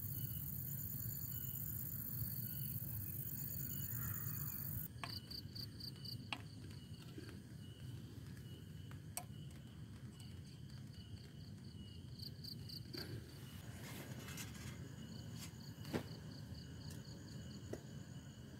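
A steady high hiss for about the first five seconds, then insects chirping in repeated pulsing trills, with a few sharp clicks and a low steady rumble beneath.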